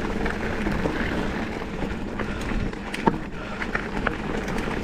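Mountain bike rolling fast over a dirt singletrack: a steady rush of tyre and trail noise with scattered clicks and rattles from the bike.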